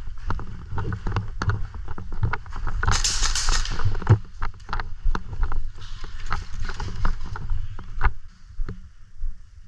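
Airsoft gunfire: a run of sharp, irregularly spaced pops and clicks, with a brief hiss about three seconds in, over a constant low rumble.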